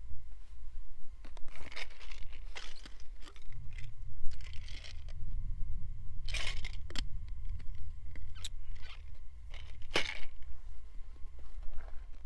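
Bursts of crinkly rustling as camping gear is handled, over a steady low wind rumble on the microphone.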